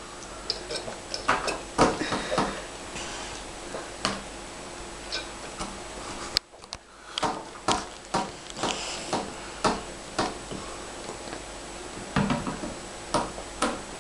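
A toddler drinking from a plastic sports bottle: scattered small clicks and knocks of the bottle and table with sniffs, over quiet room hiss.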